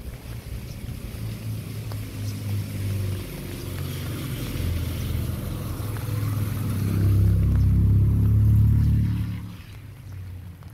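A motor vehicle's engine running with a low hum, building to its loudest about seven seconds in and then dropping away quickly near the end.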